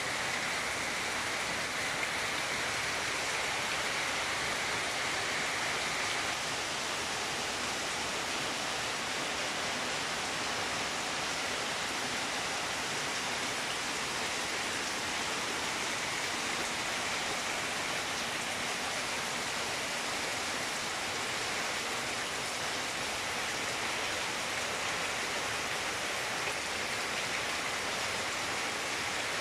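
Heavy typhoon rain pouring steadily onto trees, plants and a waterlogged yard, an even, unbroken rush of water.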